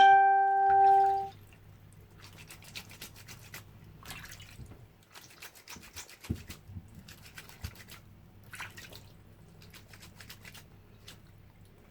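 A ringing musical note fades out in the first second or so, then wet clothes are scrubbed by hand with bar soap: faint bursts of quick rubbing strokes with short pauses between them.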